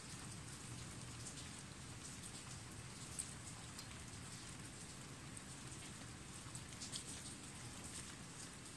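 Steady rain falling, with a few sharper drop strikes standing out about three and seven seconds in.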